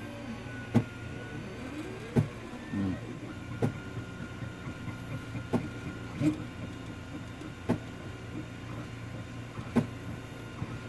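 Anet A8 3D printer running, its stepper motors whining in tones that glide up and down as the print head moves. About seven sharp clicks come every one and a half to two seconds, typical of the extruder skipping and popping when the nozzle sits too close to the glass bed of an unlevel printer.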